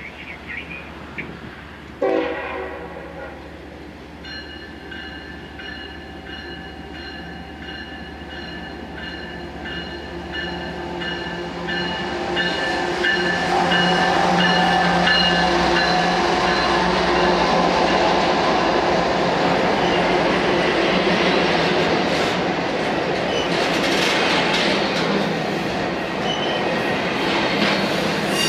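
Diesel locomotive's horn sounding a long blast from about two seconds in as a double-stack container freight train approaches. The locomotive then passes close by, and the rumble and clatter of the container cars' wheels on the rails takes over and stays loud.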